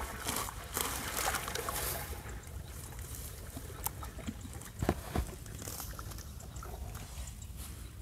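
Water and mud sloshing and trickling as hands grope into a flooded burrow in a rice-field bank. The splashing is busiest in the first two seconds, then goes quieter with a few small knocks about five seconds in.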